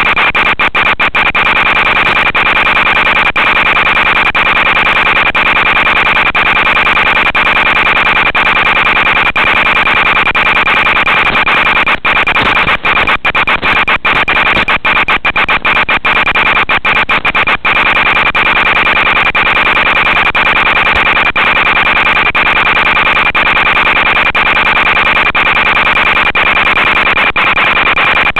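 Loud hiss and buzz from the audio channel of an analog FPV video link: a steady high tone sits over the static, broken by frequent split-second dropouts.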